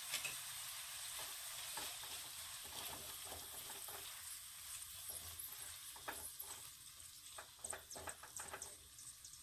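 Chopped tomatoes frying in butter and oil in a kadhai, a faint sizzle, with scattered clicks of a spoon stirring against the pan. The sizzle slowly dies down toward the end.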